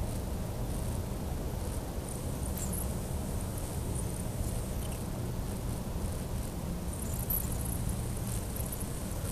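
A steady, unidentified low rumbling hum in the night air, with faint high ticks and chirps scattered over it.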